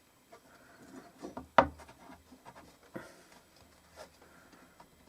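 Cover plate being set down onto the leather and template, with light rubbing and shifting and a sharp knock about one and a half seconds in, then a softer knock near three seconds.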